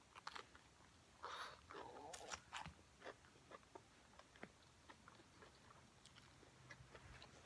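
Soft close-up chewing of a fresh rice-paper spring roll with lettuce: crisp crunching and wet mouth sounds, loudest about a second in, then scattered small mouth clicks.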